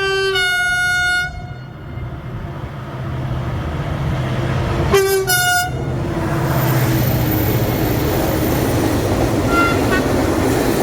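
Train horn greeting: one blast ending about a second in, then a second short blast about five seconds in. Meanwhile the train comes closer and passes with a growing rush of wheels and rail noise over a steady low hum.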